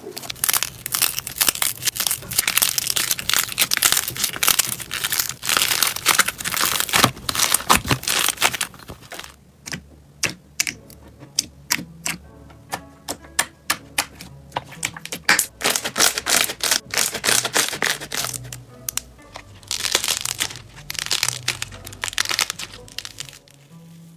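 Slime being squeezed and pressed, giving dense crackling and popping clicks that thin out to scattered pops in the middle and grow dense again near the end, over soft background music.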